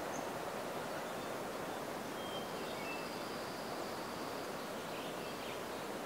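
Steady outdoor rushing background noise, with a few faint, short, high bird chirps through the middle and late part.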